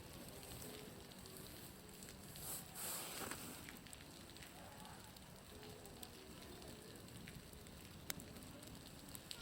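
Meltwater dripping and splashing off a building's roof in an irregular patter of small ticks, with one sharper tick near the end; it sounds much like a crackling bonfire.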